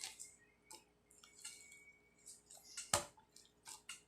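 Fluffy slime made with glue and shaving foam being squished and stretched by hand: a scattered run of soft, wet clicks and pops, with one sharper pop about three seconds in.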